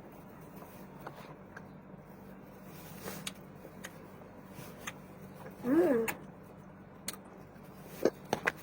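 Quiet eating sounds: scattered small clicks and taps of chewing and utensils over a steady low hum. About six seconds in there is one short voiced sound that rises and then falls in pitch, and a few sharper clicks come near the end.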